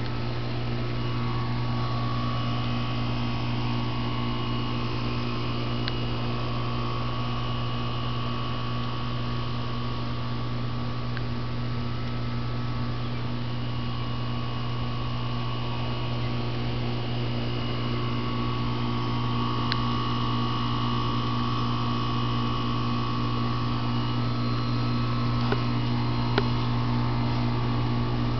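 Air conditioning unit running: a steady low hum that does not change.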